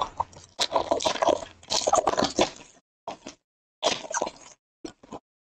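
Foil trading-card pack wrapper crinkling and tearing as it is opened by hand. A dense run of crackles lasts about two seconds, then a few short separate crinkles follow.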